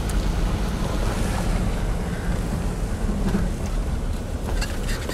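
Cabin noise of a Mercedes-Benz saloon driving along an unpaved country track: a steady low rumble of engine and tyres.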